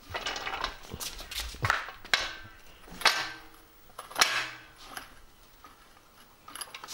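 Irregular metallic knocks and clanks, several sharp hits with a brief ring after them, as heavy metal parts are handled and moved.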